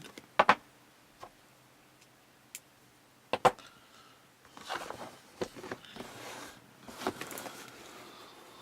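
Elgato Stream Deck's box being opened and handled: a few sharp knocks near the start and a loud double knock about three and a half seconds in, then rustling and sliding of packaging with small clicks.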